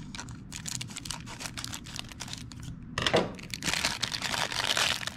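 Foil wrapper of a 1993 Topps basketball card pack crinkling as it is cut open with scissors and handled. Light, scattered crackles at first, then louder, denser crinkling from about three seconds in.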